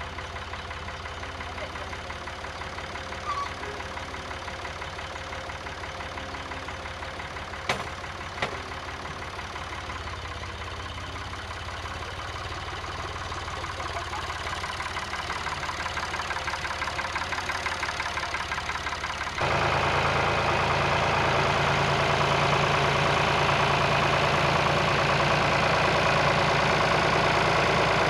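Tractor engine running steadily, growing louder through the middle and then abruptly louder about two-thirds of the way in, with a few short sharp knocks in the first third.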